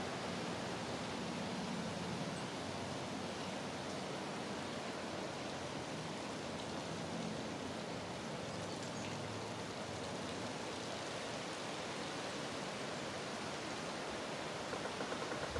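Steady outdoor ambience: an even rushing hiss with no distinct events.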